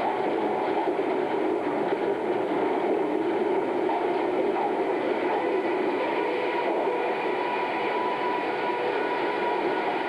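Steady din of sawmill machinery running, with the log debarker and its feed conveyors at work: a loud, unbroken mechanical noise without letup.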